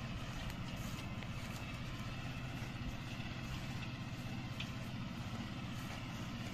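New Holland TD5.90 tractor's diesel engine running steadily under load while pulling a plough, with a few faint light ticks and rattles.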